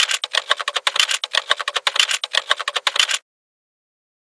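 Typing sound effect: a rapid, even run of key clicks, about ten a second, that cuts off abruptly about three seconds in.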